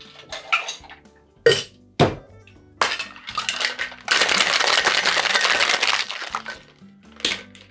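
Metal Boston shaker tins clinking and knocked together, then ice rattling hard inside the shaker for about two seconds of vigorous shaking, with one sharp knock near the end.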